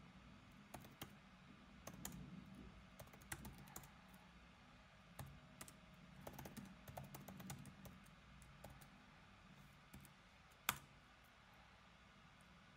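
Faint typing on a computer keyboard in scattered bursts of key clicks, with one sharper click near the end.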